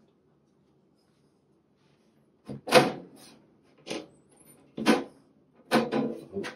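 Side panel of a Radius 81/110 Macintosh clone tower being pulled off its chassis by hand. After a quiet start there is a series of about five clunks and rattles as the panel shifts against the case frame.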